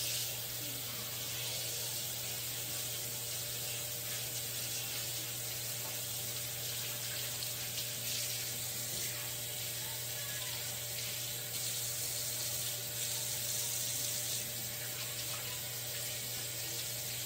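Kitchen tap running steadily, with hands being washed under the stream.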